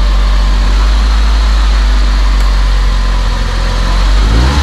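Car engine idling steadily while it warms up, with a change in its note just before the end.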